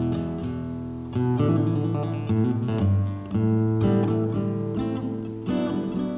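Background music: an acoustic guitar playing chords, each struck and left to ring.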